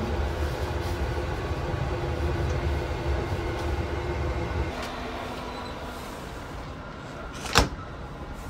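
Steady rumble and hum of a sleeper train heard from inside a compartment, settling lower about halfway through, with one short sharp knock near the end.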